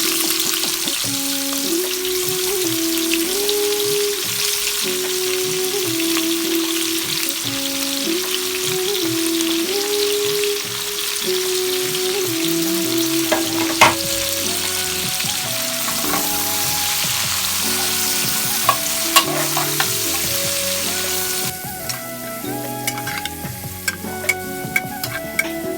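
Food frying in hot oil in a pan, a loud steady sizzle, with a light background melody. About 21 seconds in the sizzle drops and short clicks of stirring come through.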